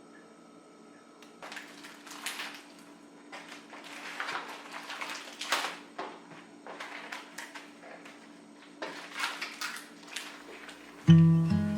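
Intermittent rustling and light knocks of objects being handled and moved about, coming in irregular bursts over a faint steady hum. Background music comes in near the end.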